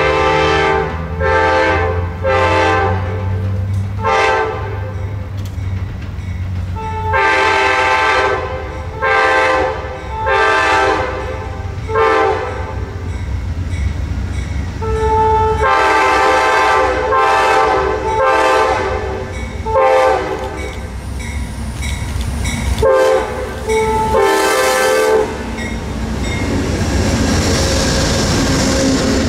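Amtrak P42DC diesel locomotive's multi-chime air horn blowing a series of long and short blasts as the train approaches, with the engine's low rumble beneath. Near the end the locomotive and passenger cars rush past on the rails.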